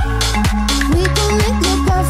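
Upbeat dance music with a steady kick drum about twice a second.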